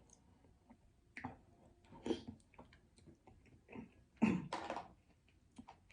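Close-up mouth sounds of eating: soft clicks and lip smacks while chewing, with two brief throaty voice sounds about two and four seconds in, the second the loudest.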